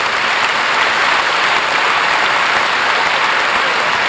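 A large hall audience applauding steadily after a speech ends: dense, even clapping.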